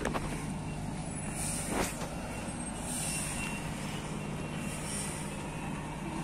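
Heavy truck's diesel engine running steadily at low speed, with a couple of brief clicks.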